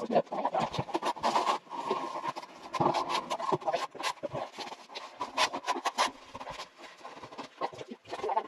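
Trowel and mortar work on aerated concrete blocks: irregular scraping with short knocks and taps.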